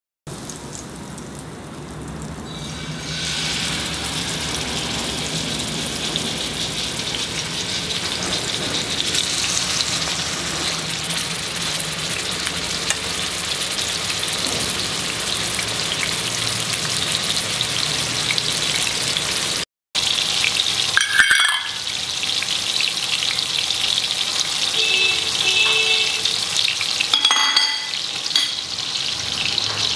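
Fish shallow-frying in hot coconut oil: a steady sizzle that grows louder about three seconds in. A couple of brief knocks come later on.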